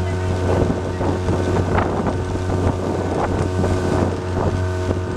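Outboard motor running steadily as a small boat moves over choppy water, with wind on the microphone and water knocking and splashing against the hull.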